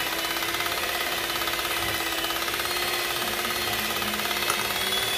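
Electric hand mixer running at a steady speed, its metal beaters whipping chilled cream and condensed milk in a glass bowl, with a steady motor whine.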